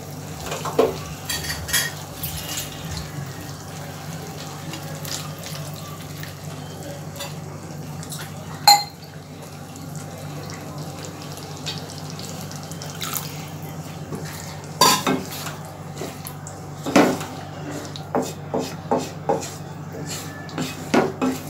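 Wooden spatula knocking and scraping against a black nonstick kadhai as a thinned chicken curry gravy is stirred, with one sharp clack about nine seconds in and a run of knocks in the last seven seconds, over a steady low hum.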